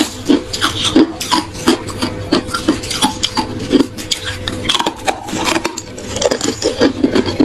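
Hard ice being chewed close to the microphone: a continuous run of crisp, uneven crunches, roughly two or three a second.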